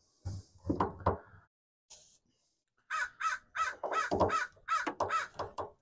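Crows cawing: a quick run of about ten calls, some four a second, starting about three seconds in.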